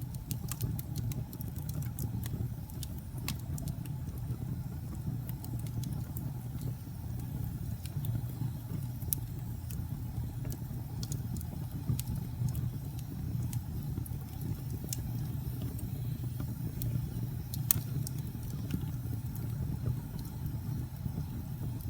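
Log fire burning in a fireplace: a steady low rumble of flame with scattered sharp crackles and pops of burning wood, one pop louder than the rest late on.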